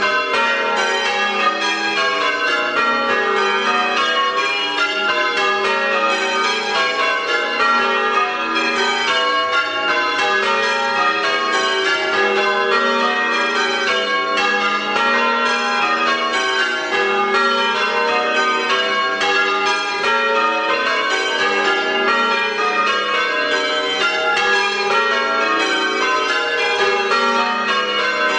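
Church bells change ringing a Major method on eight bells: a steady, rapid, even succession of bell strikes, each ringing on into the next.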